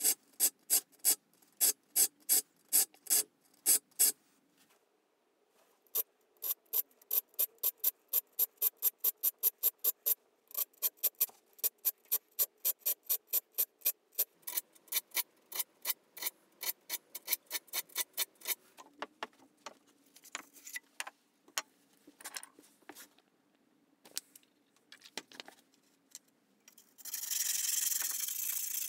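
A saw file stroked across the teeth of a handsaw blade clamped in a wooden vise, recutting the teeth: sharp rasping strokes, about two or three a second at first, then faster runs of about four a second, thinning to scattered strokes. Near the end there is a steady scraping hiss for a couple of seconds as the saw plate is rubbed flat on the bench.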